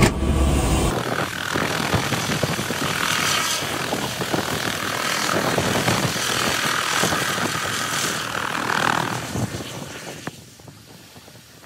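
Helicopter rotor and engine running, a loud steady rush with a fast flutter. The noise fades away near the end as the helicopter leaves.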